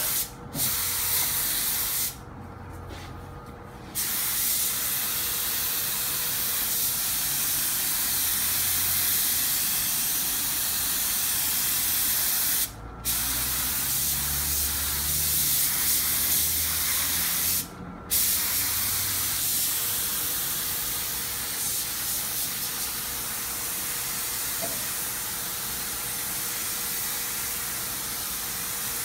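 Compressed-air spray gun with a siphon-feed cup hissing steadily as it sprays a coat of metallic paint, the trigger let off briefly a few times between passes.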